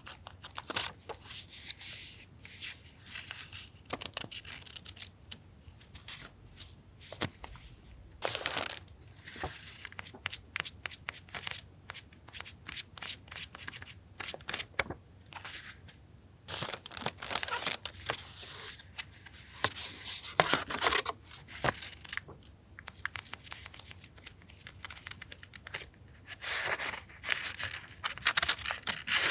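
Paper and sticker sheets being handled close up: irregular bursts of tearing and crinkling rustles with light taps and clicks between them.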